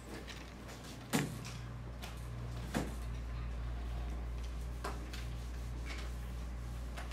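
Classroom room tone: a steady low hum with a few scattered knocks and clicks, the loudest about a second in and another near the three-second mark.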